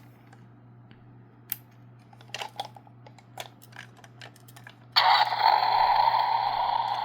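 Light plastic clicks and taps from handling a battery-powered Finn McMissile toy car. About five seconds in, the toy's small built-in speaker abruptly starts a loud, steady electronic sound effect, now running on fresh batteries.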